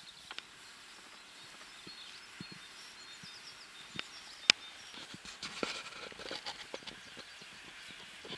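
Quiet pasture sounds: faint bird chirps with scattered soft steps and rustles of beef cows and calves walking through grass, and one sharp click about four and a half seconds in.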